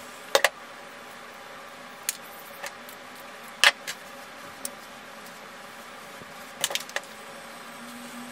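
L'Oréal Steampod 2.0 steam hair straightener running with a steady hum, broken by several sharp clicks and clacks as the styler and brush are handled, the loudest pair a little past halfway.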